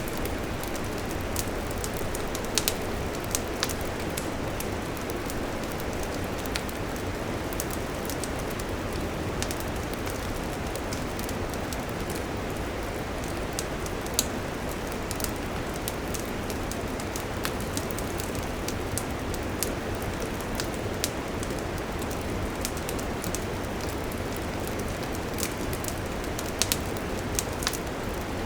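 Wood campfire burning: a steady rushing hiss with sharp crackles and pops at irregular intervals, a few of them louder.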